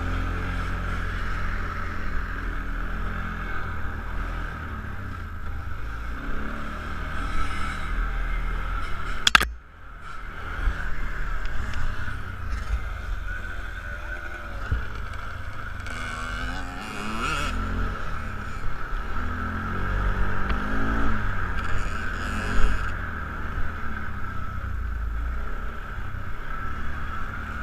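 Kawasaki ATV engine running while riding, its pitch rising and falling with the throttle. A sharp click and a brief drop in level come about nine seconds in.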